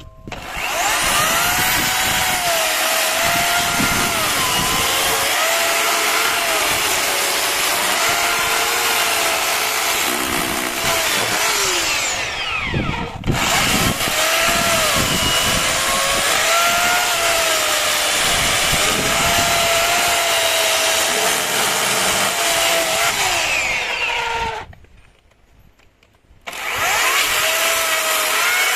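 A power tool running loud and steady, its pitch wavering as the load changes. It dips briefly partway through and stops for about two seconds near the end before starting again.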